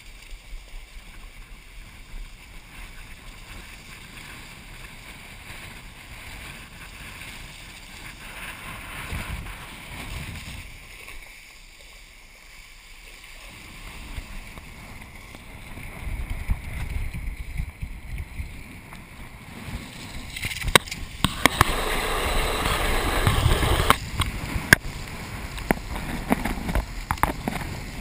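Water rushing and splashing under a kiteboard, with wind buffeting the board-mounted camera's microphone. The rush grows much louder about two-thirds through, and sharp knocks and splashes follow near the end as the camera goes through the water.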